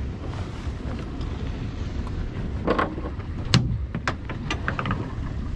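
Steady low wind rumble on the microphone aboard a small boat at sea. About halfway through come a few sharp knocks and clicks, the loudest a single hard knock.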